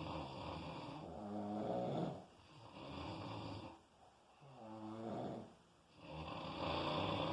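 Heavy snoring, a pitched snore on each breath, about four breaths with short quieter gaps between.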